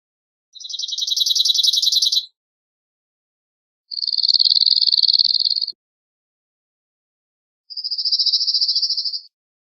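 Cirl bunting singing: three high, rapid trills of one note repeated quickly on a near-steady pitch, each lasting about two seconds, with pauses of about one and a half seconds between them.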